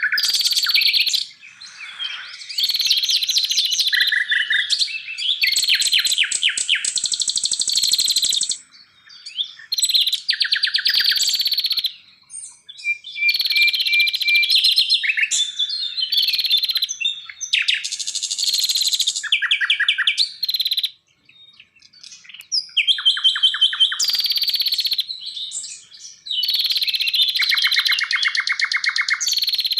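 Forest songbirds singing: a busy run of varied high chirps, whistles and rapid trills, in bursts of several seconds with short pauses between them.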